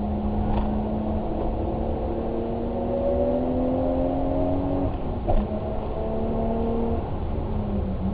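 A vehicle engine pulling under load, its pitch rising slowly for about five seconds, then dropping sharply and running on at a steady pitch.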